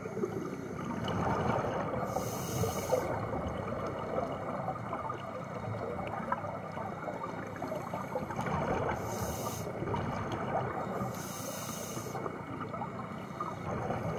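Scuba regulator breathing heard underwater: three hissing inhalations, about two, nine and eleven seconds in, over a steady crackle of exhaled bubbles.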